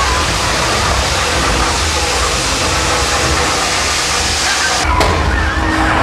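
Simulated earthquake effects of a theme-park subway ride: a steady low rumble under a loud rushing hiss. About five seconds in, the highest part of the hiss cuts out suddenly.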